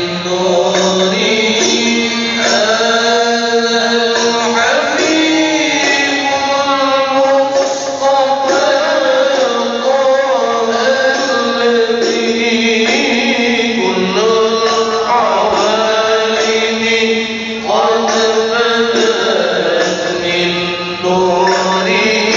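Men's voices chanting a maulid recitation, devotional verses in praise of the Prophet, sung in long held, wavering notes without a break.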